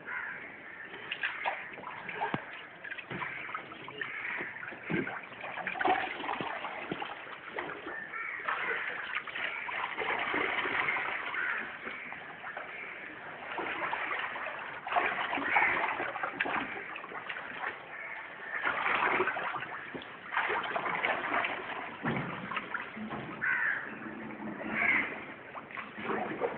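Floodwater splashing and sloshing in uneven bursts.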